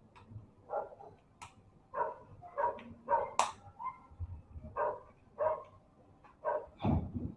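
A dog barking repeatedly in short, uneven barks, with a couple of sharp clicks and a louder thud near the end.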